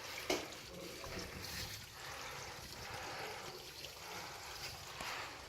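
Water trickling steadily, with a single short knock just after the start.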